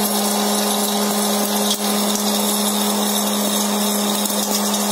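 Electric hot-air popcorn popper running: a steady motor hum under the rush of the blowing hot air, with the popping nearly finished. One faint click comes about two seconds in.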